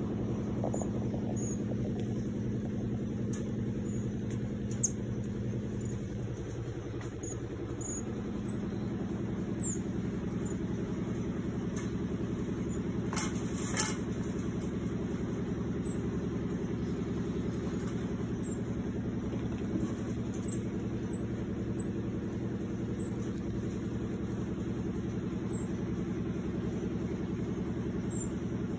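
A steady low machine hum made of several even pitches. Faint, short, high chirps are scattered over it, and a brief rattle comes about fourteen seconds in.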